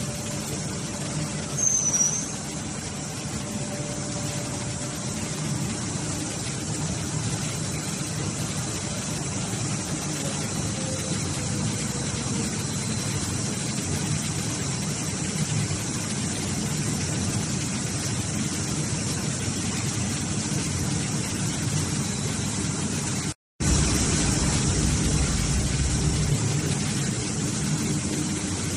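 Hydraulic baler running, a steady mechanical hum from its motor and pump. A short high squeak comes about two seconds in. The sound cuts out for an instant about 23 seconds in, after which a deeper rumble joins for a few seconds.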